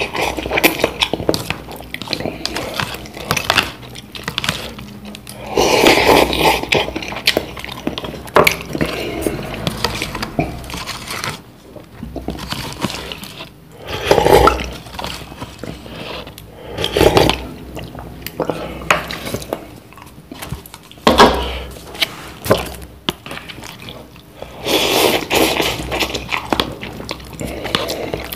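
Loud slurping of instant curry cup noodles, close up, a slurp every few seconds, with chewing and small utensil clicks against the cup in between.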